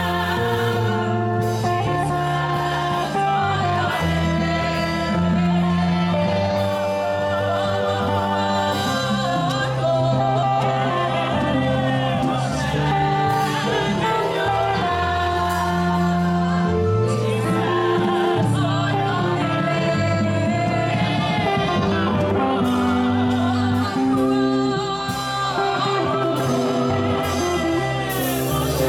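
Gospel music: voices singing over a band with a steady bass line and guitar, continuing without a break.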